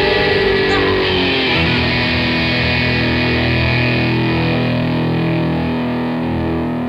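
Music with a distorted electric guitar, moving into long held low notes about a second and a half in.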